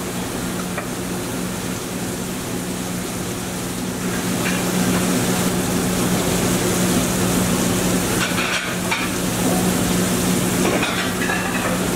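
Food sizzling on a flat-top griddle and in sauté pans over gas burners, over a steady low hum. The sizzle grows louder about four seconds in, with a few scraping clicks of a metal spatula later on.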